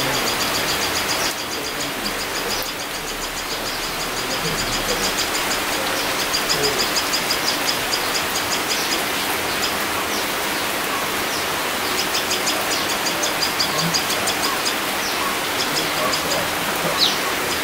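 Steady rain falling on tree leaves, with bouts of high, rapid chirping over it.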